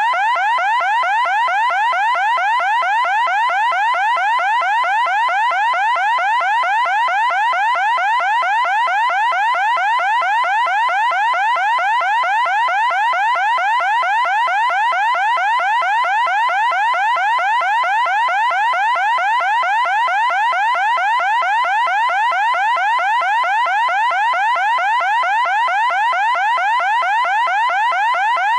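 Loud electronic siren sounding a fast, unbroken run of short rising whoops, several a second, at a steady pitch and level.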